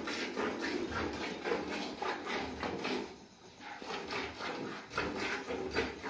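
Cow being milked by hand: rhythmic squirts of milk into a plastic bucket already partly full of milk, about four a second, with a short pause a little over three seconds in.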